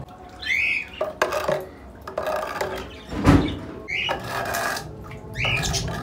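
A pet bird squawks three times over wet scraping and sloshing as a floor wiper pushes pooled rainwater across a concrete floor toward a drain hole, with one heavy thump a little past halfway.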